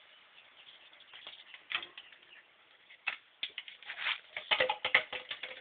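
Irregular clicks, taps and scuffs close to the microphone, thickest about three and a half to five and a half seconds in, as an Akita puppy scrabbles and bumps around the phone.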